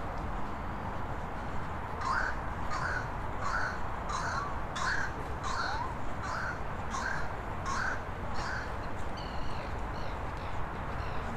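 A crow cawing, about ten caws in a steady series roughly one and a half a second, then falling silent, over a steady background rumble.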